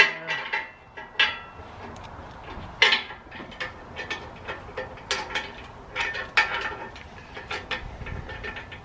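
Irregular metallic clinks and knocks of metal tire-carrier parts and bolts being handled and repositioned, several with a brief ring.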